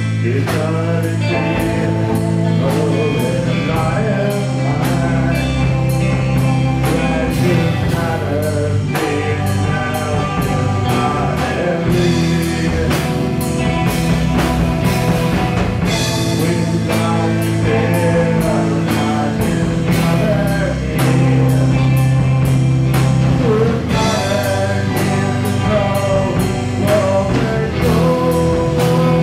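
Rock band playing an unfinished instrumental song with no lyrics yet: drum kit keeping a steady beat under bass and guitars, with a lead line that bends in pitch.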